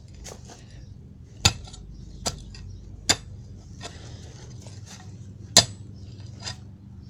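A pickaxe striking the ground in separate blows: about half a dozen sharp, clinking hits at uneven intervals, two of them much louder than the others.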